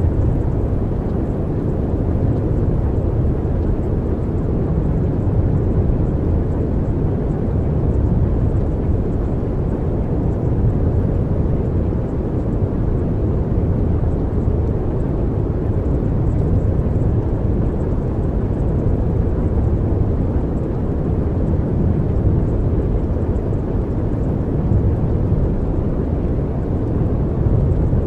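Steady low rumbling noise, even and unbroken, with no tones or rhythm: the masking sound bed of a subliminal track, under which the affirmations are hidden.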